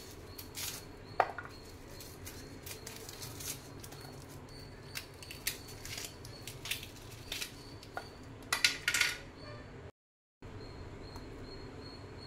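Papery red onion skin crackling and a small knife scraping and clicking as the skin is peeled off, with a sharp click about a second in and a quick run of crackles near the end, over a steady background hum.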